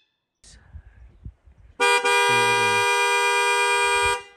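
Car horn sounding one steady two-note blast of about two and a half seconds, starting about two seconds in and cutting off sharply. A few soft knocks and rustles come before it.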